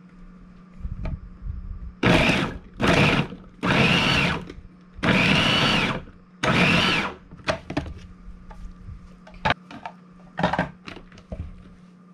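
Countertop food processor pulsed five times in short bursts, each a whine that spins up and winds down, chopping red pepper and onion into small pieces rather than a purée. Several light clicks and knocks follow.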